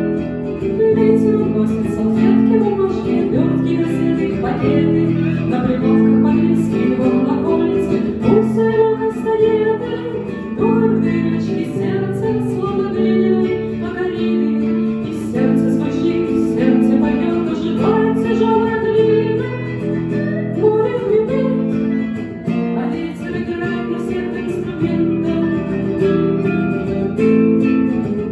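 Live acoustic guitar music: an instrumental passage of a song, with steady guitar playing throughout.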